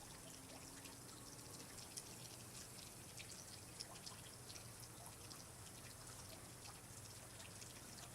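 Faint water trickling, with many small drips scattered over a soft, steady hiss.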